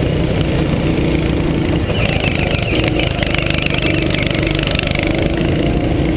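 Go-kart engine running steadily at speed, heard from on board the kart, with a brighter, higher hiss joining for a few seconds in the middle.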